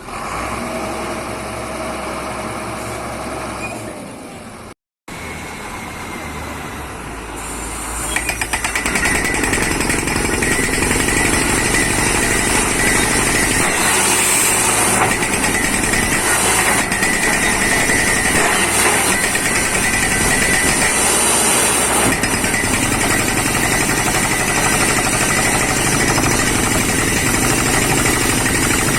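Borewell drilling rig running: engine and air compressor going steadily, then after a brief cut the sound builds and about eight seconds in turns to a loud, continuous hammering clatter with a high air hiss as the down-the-hole hammer drills.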